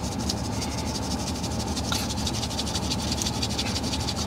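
Hands rubbing quickly against each other, skin on skin, in a steady run of many short strokes.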